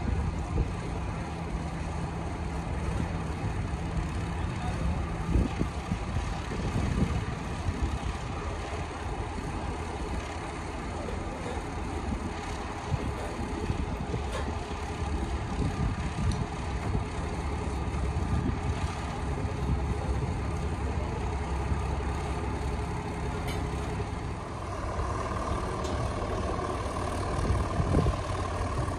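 Van's RV-12's Rotax 912 engine idling steadily on the ground with its propeller turning, picking up a little near the end as the plane begins to taxi.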